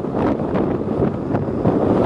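Strong wind buffeting the microphone: a loud, gusty rush.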